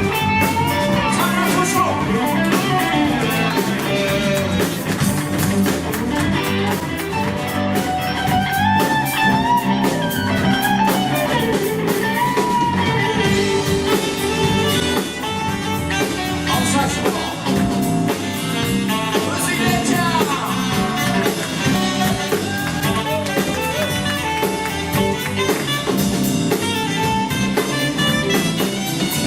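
Live band playing a song, with a steady drum beat under a gliding lead melody and guitar among the instruments.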